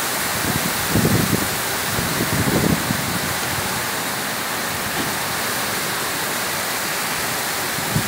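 Heavy storm rain pouring down in a steady hiss, with short low rumbles from wind gusts about a second in and again around two and a half seconds.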